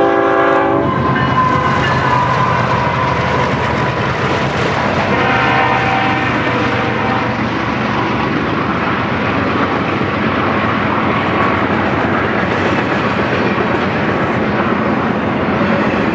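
BNSF diesel freight locomotives sound their horn at the start and again about five seconds in as they pass, their engines running beneath. Then a long string of double-stacked intermodal well cars rolls by with steady wheel rumble and clatter on the rails.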